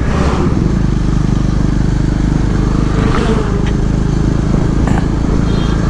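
KTM motorcycle engine running at a steady pitch while the bike is ridden through traffic, with a rush of wind and road noise that swells and fades a few times.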